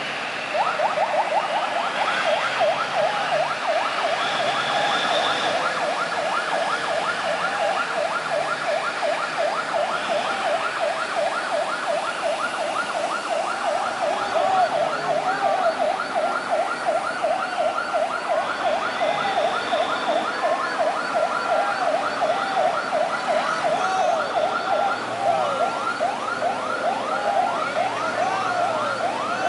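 Escort vehicle siren in a fast yelp, short rising wails repeating several times a second, starting about half a second in; a second siren overlaps it near the end.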